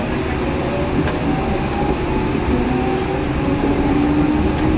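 Yurikamome 7300-series rubber-tyred automated guideway train heard from inside the car: a steady rumble of tyres on the guideway with the traction motor whine slowly rising in pitch as it gathers speed after a station.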